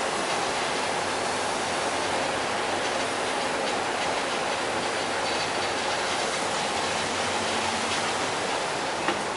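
Steady rushing drone of a car ferry under way: engine hum beneath the churn of water, unchanging in level. A couple of light knocks near the end.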